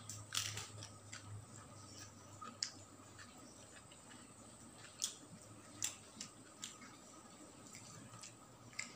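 A person chewing a mouthful of grilled fish and rice, with faint wet lip and tongue smacks and a handful of sharp clicks scattered through.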